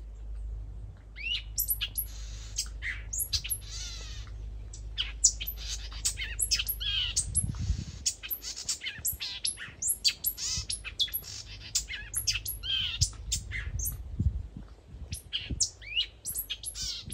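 A small songbird singing busily: quick runs of short chirps and swooping notes, broken by a few buzzy phrases.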